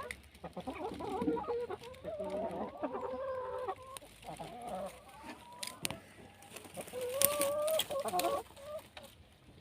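Chickens clucking and calling in two bouts of wavering cries, with a few sharp clicks.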